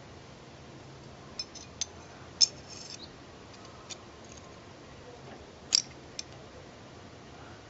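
Small steel parts of a Mauser C96 locking frame and hammer clicking and clinking against each other by hand as the hammer is fitted into the frame. A scatter of sharp clicks comes in the first few seconds, the loudest with a short metallic ring, and another loud double click comes about three quarters of the way through.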